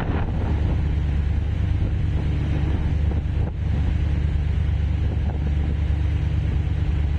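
Wind buffeting the microphone over the steady low drone of a passenger ferry under way, with the wake rushing along the hull.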